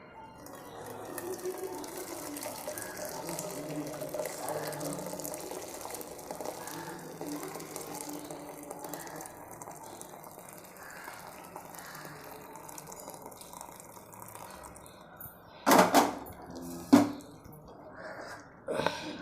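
Hot ginger-pepper decoction being poured through a strainer into a vessel, a steady trickle and splash of liquid. In the last few seconds, three loud knocks of kitchen vessels.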